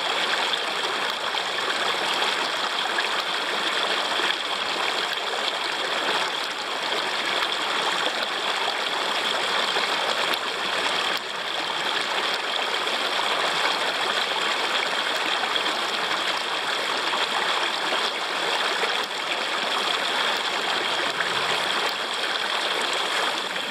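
Small stream babbling over a low step of rocks, a steady rush of flowing water.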